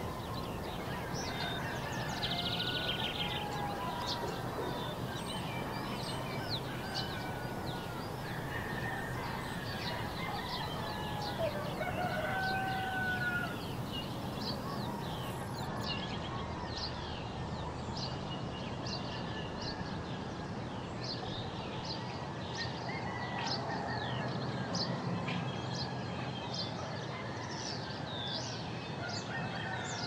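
Forest ambience: many birds chirping and calling over a steady background hiss, with a few longer gliding calls mixed among the rapid short chirps.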